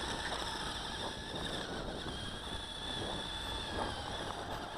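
Toy RC snowmobile's small electric motor and track drive running with a thin, steady high whine as it crawls slowly through snow.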